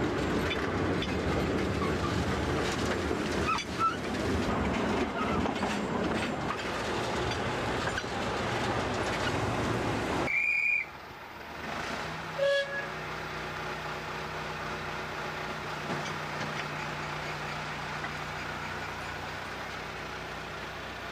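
Narrow-gauge field railway train running over the track, a dense rumbling clatter for about the first ten seconds until the sound cuts off abruptly. Then comes a short high tone and a sharp clank about two seconds later, followed by the small locomotive's engine running steadily.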